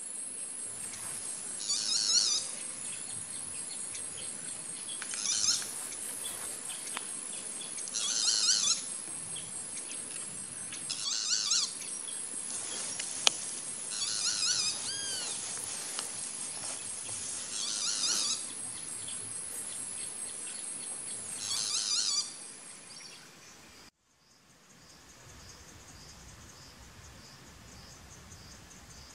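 Great potoo giving its rough call seven times, about every three seconds, over a steady high-pitched drone of night insects. The insect drone and the calls stop about three-quarters of the way through, leaving a quieter forest background.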